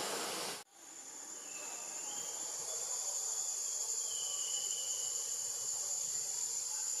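Steady, high-pitched drone of insects in the trees. It cuts out briefly about half a second in and fades back up. A few faint thin tones come and go in the middle.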